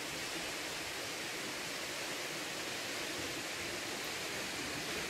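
Steady, even rush of water falling at Toccoa Falls, a waterfall.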